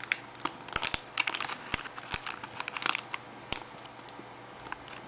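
Paper or plastic wrapping crinkling and crackling as it is handled, in a quick run of crackles over the first three and a half seconds, then a few scattered ones.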